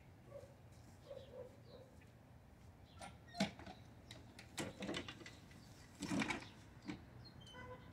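Quiet rustling and brushing with a few soft knocks as a Honda walk-behind mower is pushed into clumps of tall grass, loudest about six seconds in. No engine is heard running.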